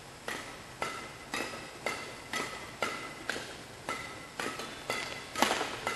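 Badminton racquets striking a shuttlecock in a fast doubles rally, a sharp crack with a brief ringing ping about twice a second. The loudest hit comes about five and a half seconds in.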